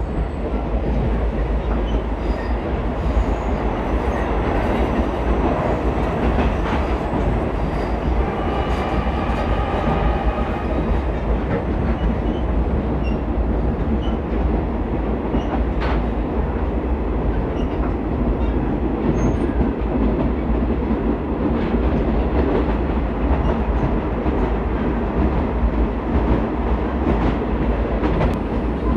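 Commuter train running along the track, heard from inside the carriage: a steady rumble of wheels on rails and the rattle of the car. A faint high whine comes in briefly about ten seconds in.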